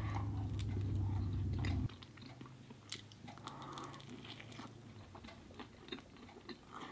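A person biting and chewing a slice of crisp-baked rising-crust frozen pizza, with scattered crunches of the crust. A low steady hum sounds over the first two seconds and stops.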